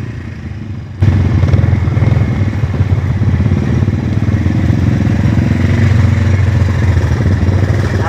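Motorcycle engine running steadily while riding, suddenly louder about a second in.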